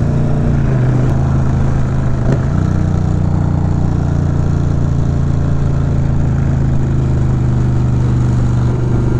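Indian V-twin motorcycle engine running steadily at road speed, with wind and road noise around it; its note shifts briefly a little over two seconds in, then holds steady.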